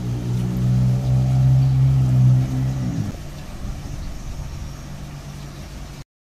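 Background music of held low notes that change and grow quieter about three seconds in, then cut off suddenly near the end.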